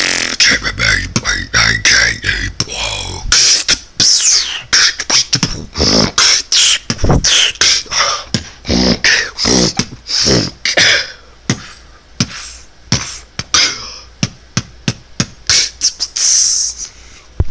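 A person beatboxing: a fast rhythm of mouth-made kick and snare strokes with hissing hi-hat sounds. A low bass drone runs under the beat for the first three seconds or so, then drops out.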